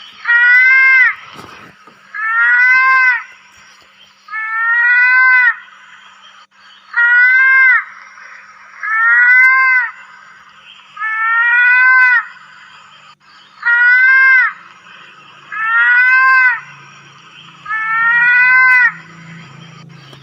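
Mouse-deer calling: a regular series of high, nasal, mewing cries, about one every two seconds, each under a second long and rising in pitch before dipping slightly at the end.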